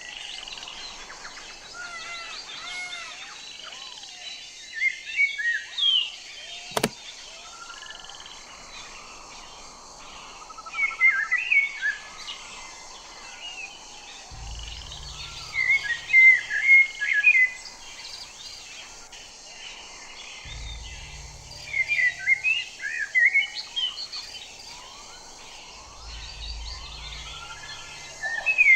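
Common blackbird singing: repeated phrases of low fluted whistles that break into a quick, high twittering flourish, one phrase every five or six seconds, over a steady background hiss. A single sharp click comes about seven seconds in.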